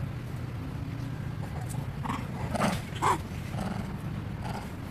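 A dog barks twice in quick succession, about two and a half seconds in and again half a second later, over a steady low rumble.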